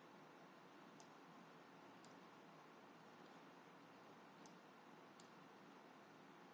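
Near silence with a faint steady hiss, broken by a handful of faint single clicks about a second apart from a computer mouse selecting text.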